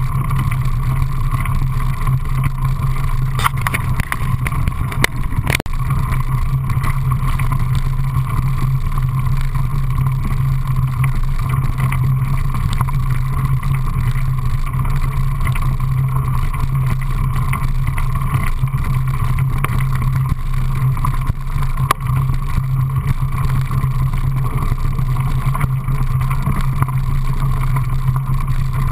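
Steady noise of a camera riding on a moving mountain bike: tyres crunching over a gravel trail and wind on the microphone, with a few sharp knocks from bumps a few seconds in.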